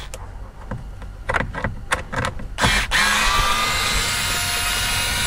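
A few light clicks of handling, then about three seconds in a small cordless electric screwdriver starts and runs steadily with a motor whine, backing a screw out of the plastic steering column shroud.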